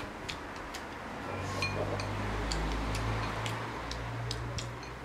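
Chopsticks clicking and tapping against porcelain rice bowls and plates while eating, a scattering of small sharp clicks. A low steady hum swells up about a second in and fades again near the end.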